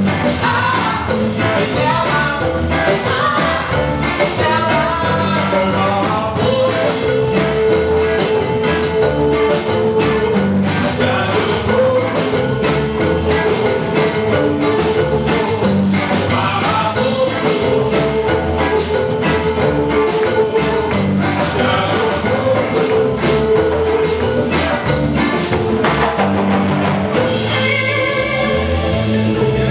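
Live band playing an instrumental passage: electric violin, electric guitar, electric bass, drum kit and congas, with long held notes over a steady beat. Near the end the arrangement changes briefly.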